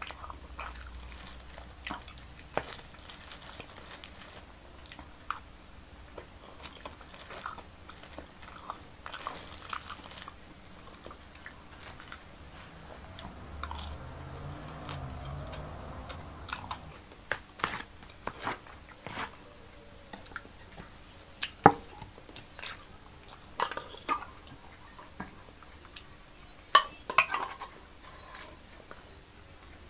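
Chewing and mouth sounds of a person eating rice with canned sardines and tuna, with scattered sharp clicks and scrapes of a metal spoon on the tray and, near the end, in an open tuna can.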